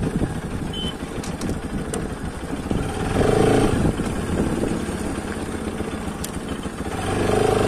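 Bajaj Pulsar RS 200's single-cylinder engine running as the motorcycle is ridden along a rough dirt track, with steady low wind and road noise. The engine grows louder briefly about three seconds in and again near the end.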